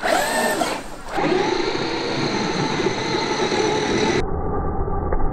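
Traxxas X-Maxx's VXL-8s brushless electric motor and drivetrain whining as the upturned truck spins its wheels in the air. The whine rises and falls with the throttle for about the first second, then holds steadier.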